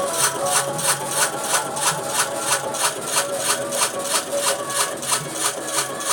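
Electric chip-slicing machine with a 150-watt motor, running with an even rhythm of sharp cutting strokes, about three to four a second.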